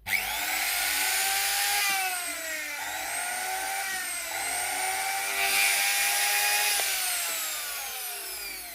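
Moulinex blender's electric motor switched on and running with its drive coupling removed, a high whine that dips and recovers in pitch a few times and starts to wind down near the end. It runs smoothly, which the repairer takes to mean the earlier noise and vibration came from the worn, unbalanced coupling.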